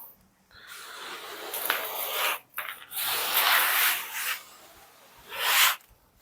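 Sand being poured and worked by hand onto a flat board: a hissing, rubbing noise in three stretches, the last one short.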